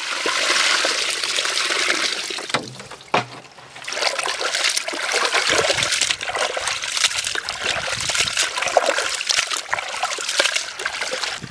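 Raw chicken pieces being rinsed by hand in water, the water splashing and sloshing, with a short lull about two and a half seconds in.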